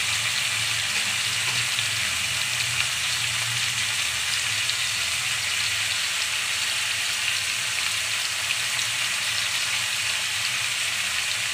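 Raw chicken pieces sizzling steadily in hot oil in an aluminium kadai, an even frying hiss, with a low steady hum underneath.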